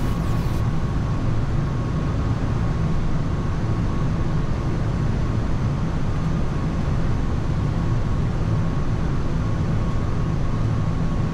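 Steady flight deck noise of a Boeing 787 on approach: an even, low rush of air with a faint steady high tone above it.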